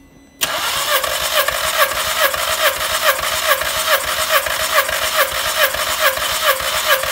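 Starter motor cranking a Skoda Rapid's 1.6 CWVA four-cylinder petrol engine for a compression test on the first cylinder, starting about half a second in and going on in an even, steady rhythm of repeating pulses.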